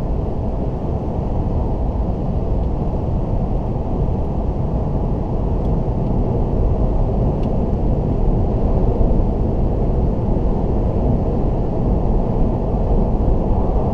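Toyota Auris cruising at motorway speed, heard from inside the cabin: a steady low rumble of tyre, road and wind noise, swelling slightly in the second half.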